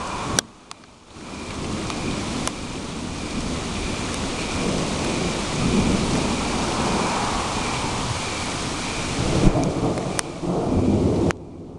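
Steady rain with low rolling thunder, the rumble swelling around the middle and again near the end. The sound drops away briefly about half a second in and again just before the end.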